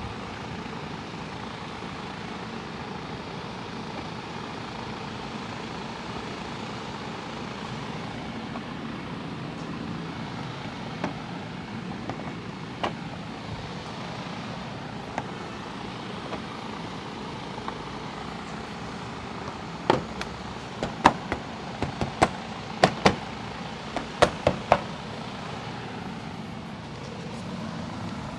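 Steady background hum with a few sharp knocks, then a quick run of about ten sharp clicks and taps in the second half: a plastic front bumper end cap for a 2019–2022 Chevy Silverado being pressed and tapped by hand onto its mounting clips.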